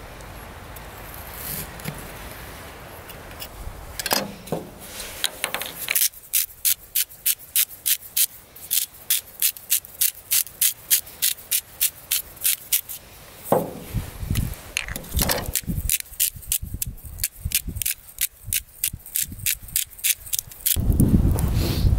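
Hand-twisted spice grinder grinding seasoning onto meat: two runs of gritty clicks, about four a second, with a short pause between them. Before that, a few seconds of a knife slicing through meat on a wooden cutting board; a louder low rush comes in near the end.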